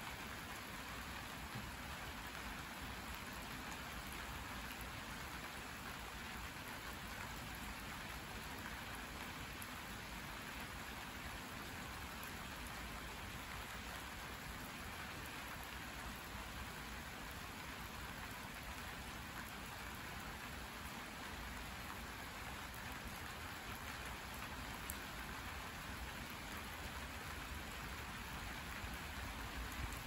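Steady rain falling on a vegetable garden: an even hiss of drops that keeps up without a break.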